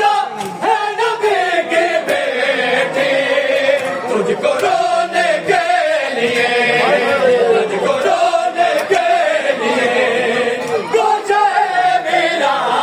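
Men's voices chanting a noha (Urdu mourning lament) together, with sharp slaps of hands striking bare chests in matam.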